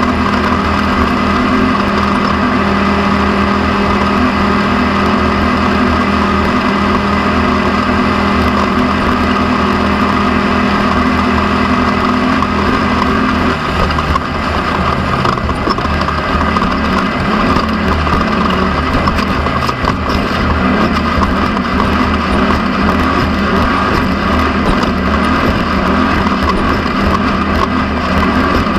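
Off-road race vehicle's engine running hard, heard from an onboard camera. It holds a steady note for about the first half, then the pitch shifts up and down as the throttle and speed change.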